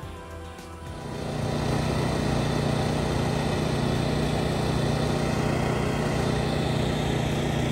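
An engine running steadily at a constant speed, coming in about a second in as background music fades out.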